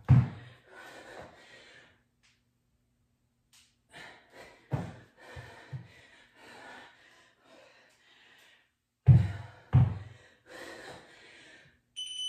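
A woman breathing hard from exertion in a kettlebell workout, with sharp, forceful exhales coming in clusters. Near the end a workout interval timer gives one short electronic beep as the work period ends.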